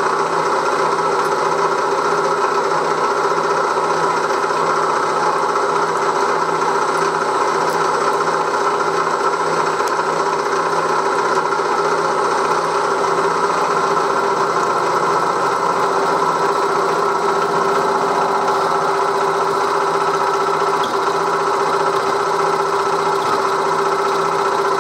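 1938 Bridgeport M-head milling machine running steadily, its end mill taking a full-width roughing cut in a steam-locomotive cylinder block as the work is turned into the cutter on a dividing head, with coolant flowing; a constant, even machine hum with cutting noise.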